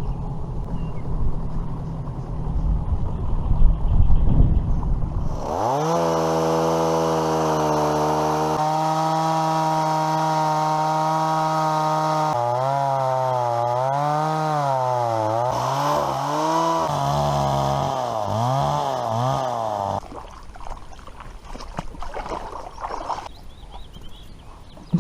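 Boat outboard motor running. Its pitch holds steady for several seconds, then rises and falls repeatedly as the revs change, and it cuts off abruptly about five seconds before the end. Before it, a low rumbling noise.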